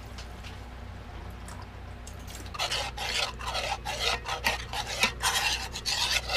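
Marinade being stirred in a small stainless steel saucepan, the utensil scraping quickly and repeatedly round the pot, starting about two and a half seconds in.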